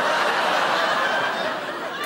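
Studio audience laughing, loudest at the start and slowly dying down.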